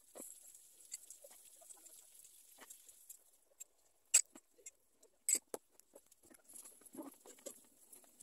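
Light scraping and scattered clicks of a metal spoon and spatula working on a cake layer on a cake turntable, with a few sharper taps about four and five seconds in.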